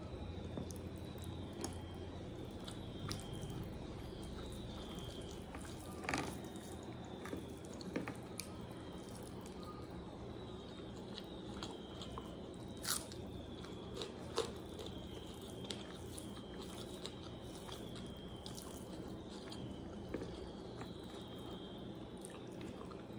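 Close-up eating sounds of chicken biryani eaten by hand: chewing and mouth noises with a few sharp crunches, which fit bites of raw onion, over a steady low background hum.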